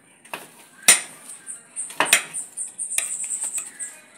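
Kitchen knife slicing a raw potato and knocking on the cutting board: about five sharp chops, the loudest about a second in.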